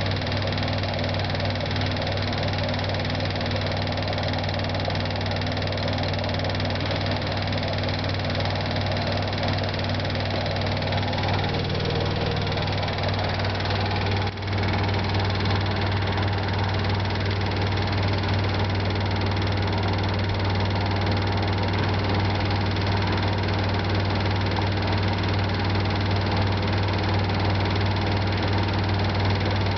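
LG 12B8ND front-loading washing machine in its spin cycle: a steady motor and drum hum with a brief dip about halfway through. Through it runs a knocking or clicking noise that appears during spin whatever the load. The owner traces the noise to the lower right of the machine and does not hear it when the empty drum is turned.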